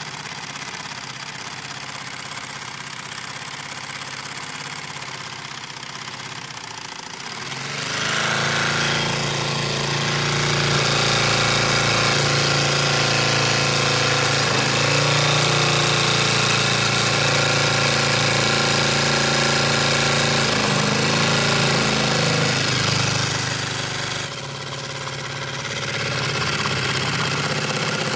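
Mamod SP5 twin-cylinder model steam engine running steadily under steam, heated by a ceramic butane burner. The sound grows louder about eight seconds in, dips briefly near the end, then comes back up.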